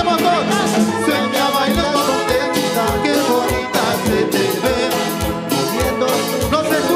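A live Peruvian cumbia band playing an instrumental passage, led by electric guitar, over a steady percussion beat.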